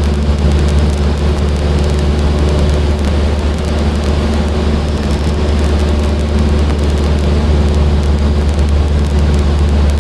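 Cessna 152's four-cylinder Lycoming engine and propeller running steadily at cruise power, heard from inside the cabin as a constant low hum with rushing air noise.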